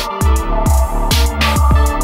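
Rap instrumental beat: deep bass notes that slide down in pitch, sharp drum hits and a held synth tone, with the bass dropping out for a moment near the start.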